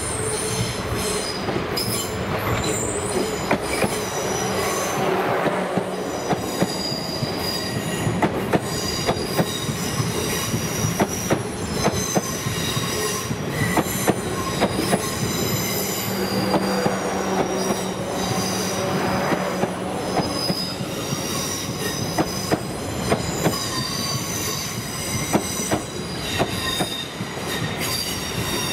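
South Western Railway multiple-unit passenger train running past along the platform: a steady rumble and low hum with high-pitched wheel squeal coming and going, and repeated clicks of the wheels over rail joints.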